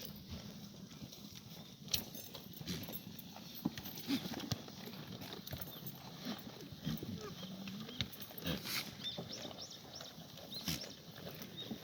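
Black goats moving about in their yard, hooves clattering in scattered clicks and knocks.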